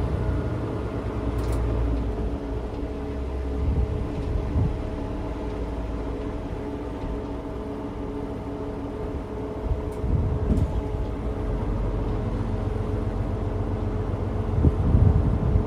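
Diesel railcar running at low speed under power, heard from the driver's cab: a steady engine drone and rumble with an even hum, and a few faint clicks.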